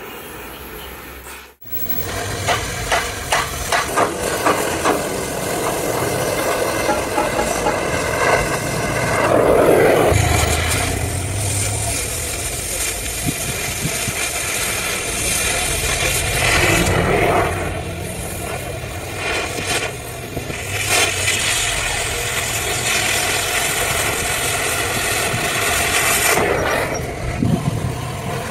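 Oxy-fuel cutting torch hissing as its flame cuts through a steel truck chassis rail, swelling louder several times. The sound drops out briefly about a second and a half in.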